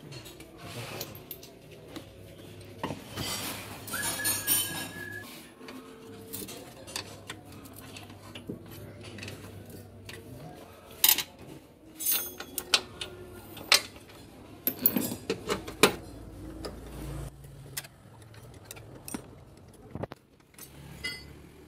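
Hand tools clinking and clattering against metal: a wrench and socket working the engine mount bolts, with scattered sharp knocks that are loudest around the middle.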